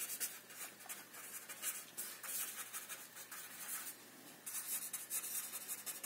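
Pen writing on paper by hand: a run of short, quick scratching strokes, with a brief lull about four seconds in before the strokes pick up again.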